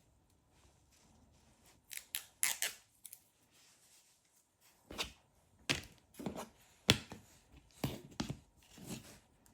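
Double-sided adhesive tape being cut and peeled to mount a replacement battery: about a dozen short, sharp snips and crackles, starting about two seconds in, with a pause in the middle.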